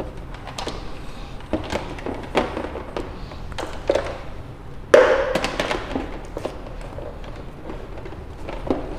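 Plastic intercom monitors being handled and unwrapped on a countertop: scattered taps and knocks with rustling, and a louder thud with a rustle about five seconds in.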